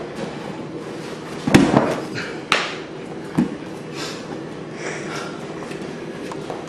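A few thumps and scuffs from two martial artists grappling and throwing on the dojo floor. The loudest comes about a second and a half in, with sharper single knocks near two and a half and three and a half seconds in.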